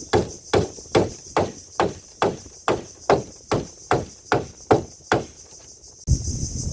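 A tool striking wood in an even rhythm, a little over two blows a second, about a dozen in all, stopping about five seconds in. About a second later a steady rushing noise comes in.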